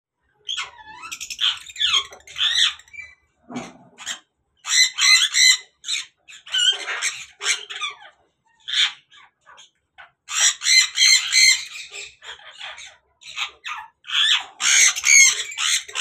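A pair of African grey parrots calling in short runs of loud calls separated by brief pauses; the calls are those of a breeding pair, given as a mating call.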